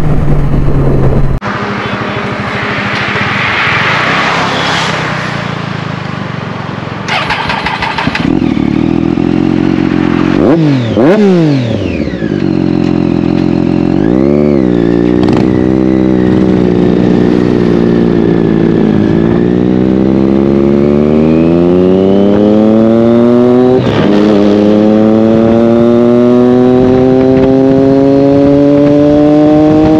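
Motorcycle engine running under way, with a rushing hiss a few seconds in. The revs dip and blip sharply twice, then climb steadily in a long pull, with a brief break for a gear change partway through before the pitch rises again.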